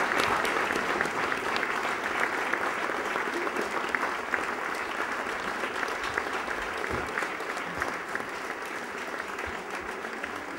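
Theatre audience applauding, many hands clapping at once, slowly fading.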